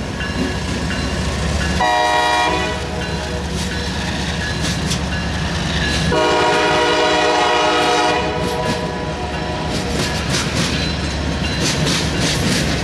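A CSX mixed freight train passing close by, with its locomotive and then tank cars rumbling over the rails. A diesel locomotive air horn sounds twice: a short blast about two seconds in and a longer one from about six to eight seconds. Toward the end, wheels clatter over the rail joints.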